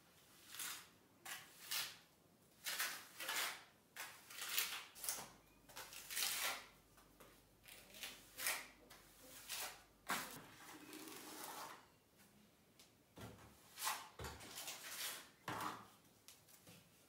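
Wet plaster being spread and scraped onto a wall with a small trowel: a string of short, irregular scraping strokes, one or two a second, with one longer, softer smear about two-thirds of the way through.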